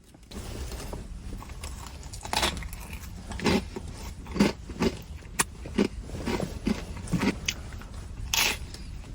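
Close-up chewing of crunchy Takis rolled tortilla chips: a dozen or so sharp crunches at irregular intervals, over a steady low rumble.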